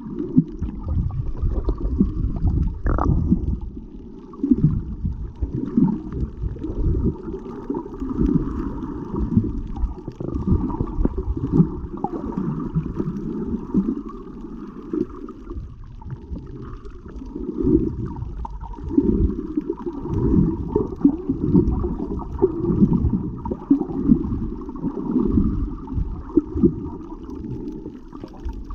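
Muffled underwater rumbling and water movement picked up by a GoPro inside its waterproof housing, swelling and fading unevenly, with a faint steady hum above it.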